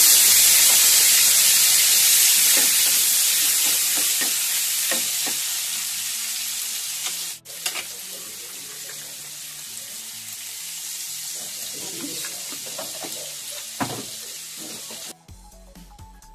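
Paneer cubes sizzling as they fry in hot ghee in a nonstick pan. It starts loud and gradually dies down, breaks off for a moment about halfway, carries on more quietly, and cuts off shortly before the end.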